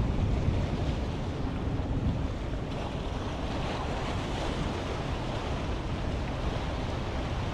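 Ocean surf washing on the shore, with wind buffeting the microphone in a steady low rumble.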